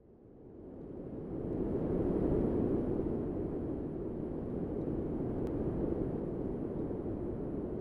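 Howling wintry wind, a storm sound effect, fading in from silence over about two seconds and then holding steady.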